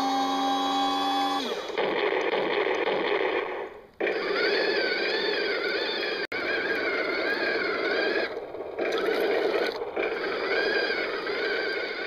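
A 1/16-scale RC M1A1 Abrams toy tank driving: its electric drive motors and gearboxes whine. The pitch is steady at first and then wavers up and down as it moves and turns. The sound cuts out briefly about four seconds in and again a little past eight seconds.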